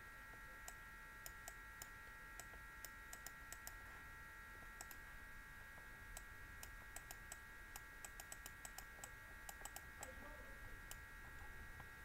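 Faint, irregular clicking from a computer input device while handwriting is drawn on screen, a dozen or more light clicks at uneven spacing. A steady high electrical whine runs underneath.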